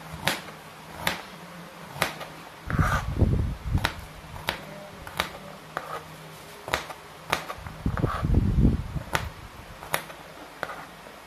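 Kitchen knife slicing garlic cloves and ginger on a plastic cutting board: a sharp tap of the blade on the board about once or twice a second. Twice, a longer low rumbling bump, the loudest sound here.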